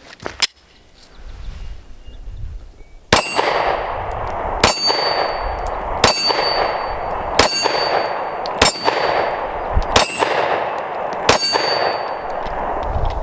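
Seven rapid pistol shots from a Smith & Wesson Shield Gen 1 9mm firing Hornady Critical Duty 135-grain loads, about one and a half seconds apart, starting about three seconds in. Each shot is followed by a high metallic ring and a fading echo.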